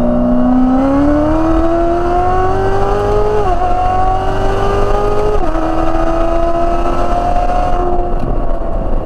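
Ported-supercharged LT4 6.2-litre V8 of a C7 Corvette Z06 at full throttle, with its automatic transmission. The revs climb, drop at an upshift about three and a half seconds in, climb again and drop at a second upshift about five and a half seconds in, then hold nearly steady.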